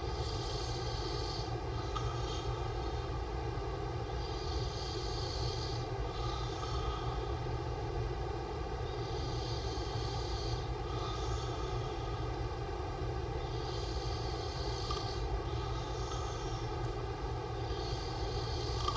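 A sleeping man snoring with his mouth open, a breath about every four seconds, over a steady low drone.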